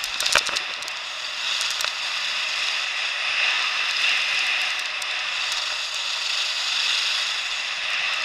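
Skis sliding and scraping over firm snow on a downhill run: a steady hiss with scattered clicks, and a sharp knock just after the start.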